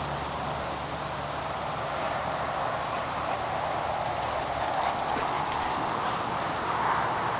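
Two large mastiff-type dogs play-wrestling, with steady heavy panting. From about four seconds in, light clicks join as one comes close.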